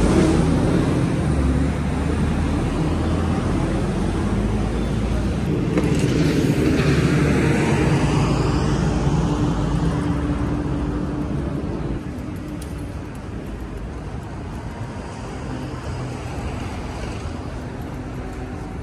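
City street traffic: engines running and a vehicle passing close by around the middle. After about twelve seconds it gives way to quieter street ambience.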